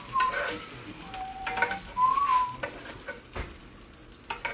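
A utensil scraping and tapping pieces of cooked chicken out of a frying pan onto a cutting board, with oil in the pan sizzling. Over the first couple of seconds someone whistles a few rising and falling notes, and there is a single low knock about three and a half seconds in.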